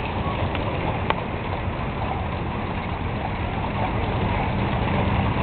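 Steady low rumble of a vehicle engine running at idle, with a couple of faint clicks about half a second and a second in.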